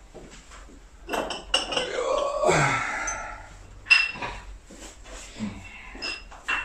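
Hard objects clinking, with a sharp ringing clink about four seconds in and another near the end, among scattered handling clicks and a brief muttered voice.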